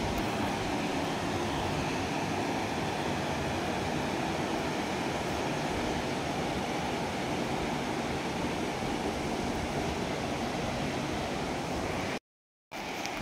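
Steady rushing of a fast-flowing river over boulders in rapids, cut by a brief gap of silence about a second before the end.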